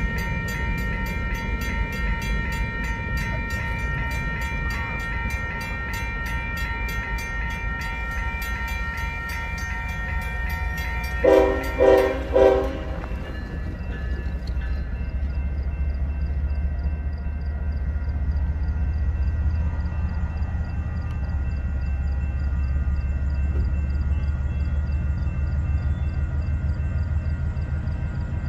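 Railroad grade-crossing bell ringing steadily, then three short locomotive horn blasts in quick succession about eleven seconds in; the bell stops soon after, leaving a low steady rumble.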